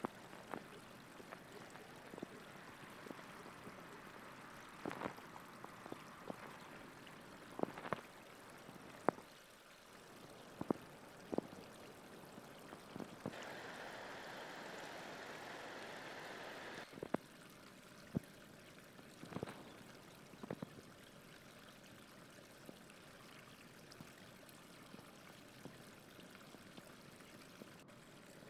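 Faint outdoor waterside ambience: a steady hiss with scattered sharp clicks and knocks from handling, and a louder rush of hiss for about four seconds in the middle.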